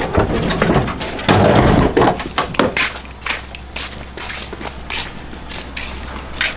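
A run of knocks, clunks and light clatter from things being handled and put down, with a louder stretch of thumping and rattling about a second and a half in, over a low steady hum.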